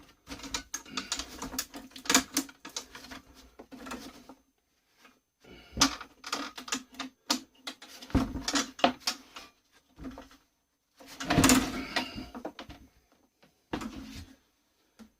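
Irregular clanks, taps and rattles of metal parts being handled and knocked while a combi boiler heat exchanger is taken apart, coming in short clusters with brief quiet gaps between.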